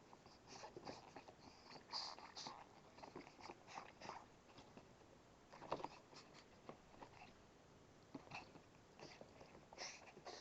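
Faint, irregular clicks and crunches of a dog biting and chewing, with the sharpest clicks about two seconds in and near the middle.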